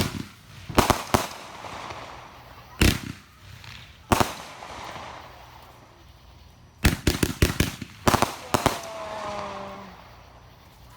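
Consumer multi-shot fireworks cake firing: sharp bangs at uneven spacing, some single and some in rapid clusters of several shots about seven and eight seconds in, each followed by a short echoing tail.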